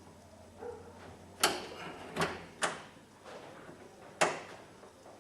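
Sharp clicks and knocks of metal and plastic parts being handled inside a car door: one about a second and a half in, two close together near the middle, and a last one about four seconds in.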